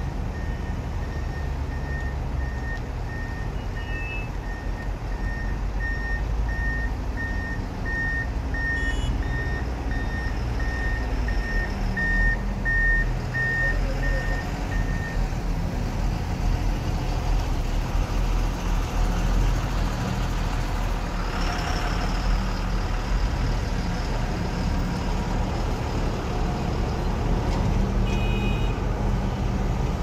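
Heavy diesel engine of a Hyundai Robex 215L crawler excavator running steadily while digging. A vehicle's reversing alarm beeps about one and a half times a second and stops about halfway through. A short hiss comes a little past two-thirds of the way in.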